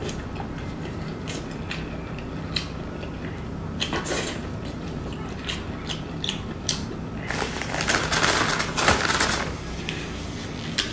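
Close-up eating sounds: a person chewing braised meat with wet mouth clicks and smacks, and gloved hands pulling the meat apart. Past the middle comes a louder, denser stretch of about two seconds.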